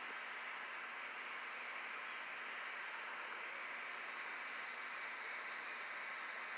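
Steady high-pitched insect chorus, like crickets, over a soft even hiss.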